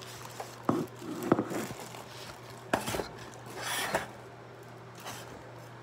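Kitchen clatter of bowls and utensils: a few sharp knocks and clinks, with a short rustle a little before the four-second mark.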